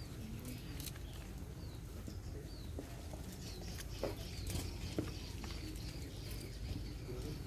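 Faint bird chirps over a steady low background rumble, with two sharp clicks about four and five seconds in.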